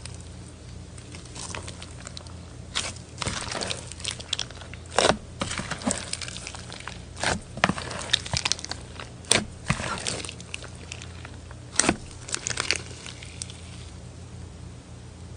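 Crunchy slime packed with plastic block beads being squeezed and pressed by hand: irregular crackles and sharp pops, several of them loud, over a faint steady low hum.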